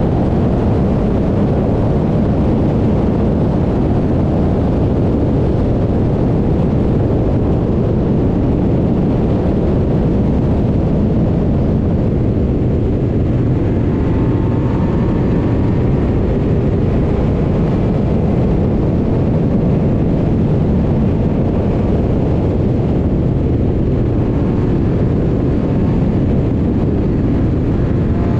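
Open-cockpit racing car at speed, heard onboard: its engine running hard under a heavy wind rumble on the microphone.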